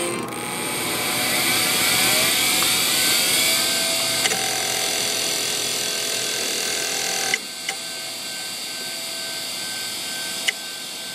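Old 200 MB IBM SCSI hard drive running noisily: a high whine that rises in pitch over the first few seconds, then holds steady with a few sharp clicks. It gets quieter about seven seconds in.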